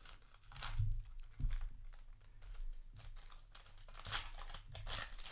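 A foil trading-card booster pack being torn open across its top: the wrapper crinkles and gives several short tearing rasps, the loudest about four seconds in.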